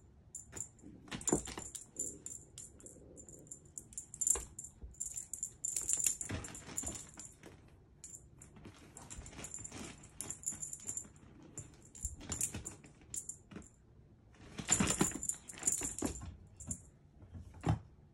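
A cat wand toy jingling and rattling in bursts as it is waved and batted about, with a few sharp thumps in between.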